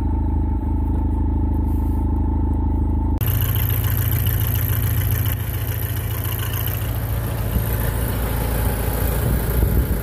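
An engine running steadily with a low hum. A little over three seconds in, the sound changes abruptly to a noisier, hissier running with a faint high whine, which continues.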